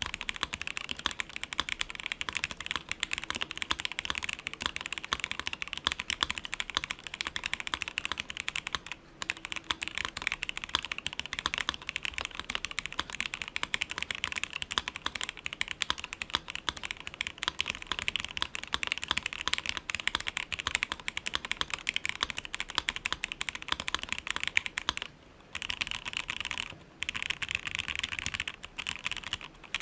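Steady fast typing on a Crylic60 60% mechanical keyboard fitted with Gateron Black KS-3 linear switches, a dense run of key clacks. It has brief pauses about nine seconds in and twice more past the 25-second mark.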